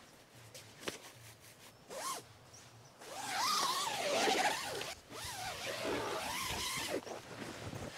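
Tent door zipper pulled along its track in two long strokes, the first about three seconds in and the second right after, with a few light taps and rustles before them.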